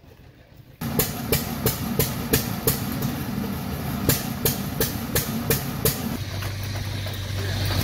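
Antique Fuller & Johnson stationary gas engines running, with a sharp, regular click about three times a second over a low mechanical rumble. About six seconds in the clicking stops and a steady low hum carries on.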